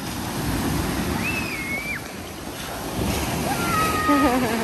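Small surf waves washing and foaming in over the shallows around a wading child, a steady rush that swells about half a second in and again past the middle. Near the end comes a short high-pitched voice cry that falls in pitch, the loudest moment.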